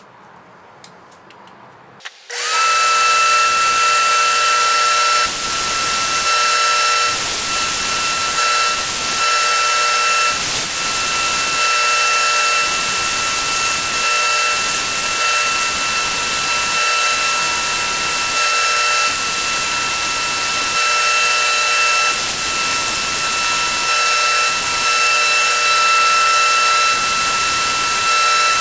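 A workshop machine switches on about two seconds in and runs steadily: a loud rush of noise with a high, steady whine.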